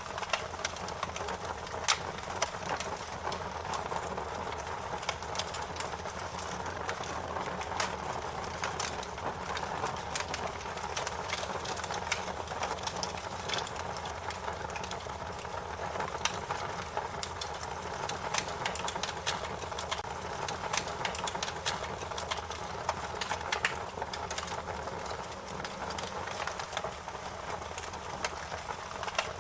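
Fire crackling, with frequent irregular sharp pops and snaps over a steady hiss.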